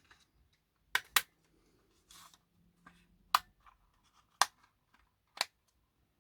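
Sharp plastic clicks and taps from a model locomotive's body shell and chassis being handled and fitted together: a quick double click about a second in, then single clicks about once a second, with a short scraping rustle between.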